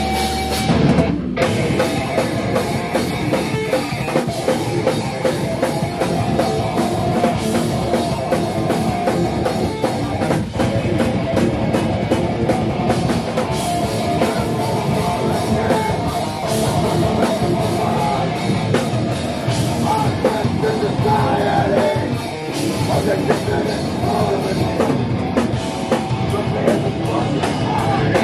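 Live heavy rock band kicking in at full volume: distorted electric guitars and a drum kit playing hard together, without a break.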